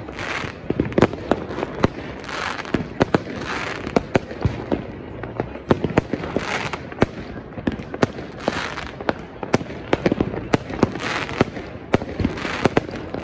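Many fireworks going off at once: a dense, irregular stream of sharp bangs from bursting shells and firecrackers, over a continuous crackle of sparkling stars.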